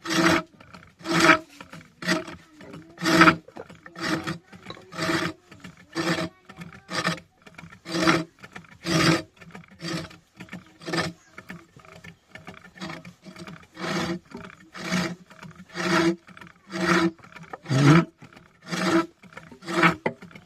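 Wood being cut on an improvised wood-turning lathe, a rasping scrape coming in strokes about once a second.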